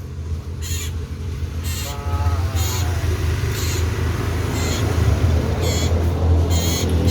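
Cipoh (common iora) singing: a string of short, high, ringing calls about once a second, over a steady low hum.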